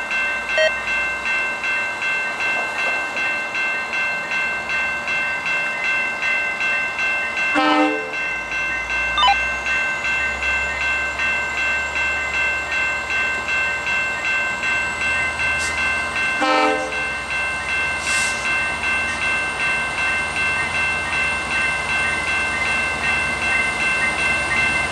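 Level-crossing bell ringing steadily in a fast, even repeat while a West Coast Express commuter train's diesel locomotive approaches with a low rumble. The locomotive's horn gives short blasts, about 8 and 16 seconds in.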